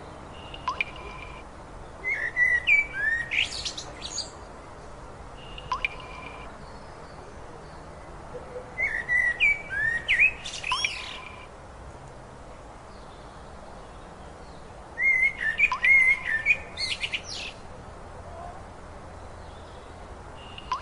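A songbird singing: a quick phrase of rising and falling whistled notes about two seconds long, repeated three times roughly every six or seven seconds, with short single notes in between.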